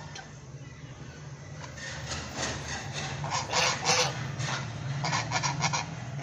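Domestic white geese honking. A cluster of short, raspy calls starts about two seconds in and is loudest around the middle, over a steady low hum.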